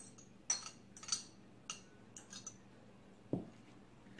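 Cutlery stirring a salad in a plastic bowl: a run of short, sharp clinks and scrapes about every half second, then a single duller knock a little after three seconds in.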